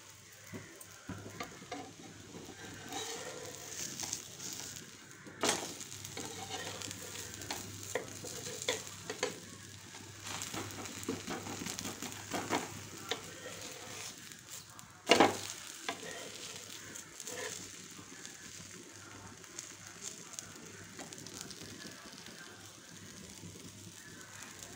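A pesarattu (green gram dosa) sizzling on a hot griddle, with scattered clicks and scrapes of a steel spatula pressing and moving it. The loudest is a sharp knock about fifteen seconds in, and there is another about five seconds in.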